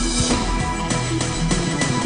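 Instrumental accompaniment of a Chinese pop song with a steady beat and held chords, without singing.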